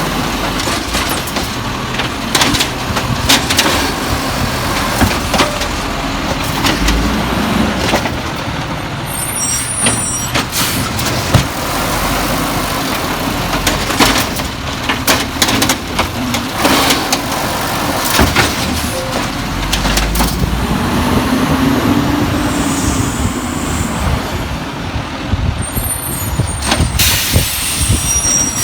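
Volvo garbage truck working with its diesel engine running, with repeated clanks and knocks throughout and short air-brake hisses at about a third of the way in and again near the end.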